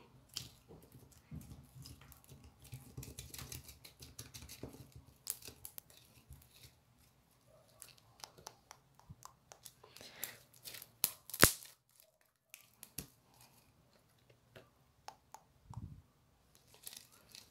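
Sticky slime being stretched, pulled and squeezed by hand, giving a run of soft wet clicks and crackling pops. The loudest pop comes about eleven seconds in, after which it goes briefly quiet.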